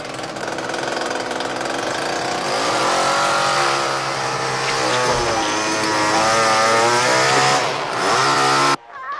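Chainsaw running loudly, its pitch rising and falling as it is revved, then cutting off suddenly near the end.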